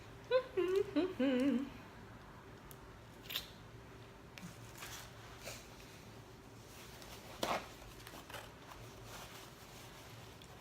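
A woman's appreciative 'mmm' hum with a wavering pitch, in a few short phrases at the start. Then eating noises: faint chewing and a few small clicks, one louder short sound about seven seconds in.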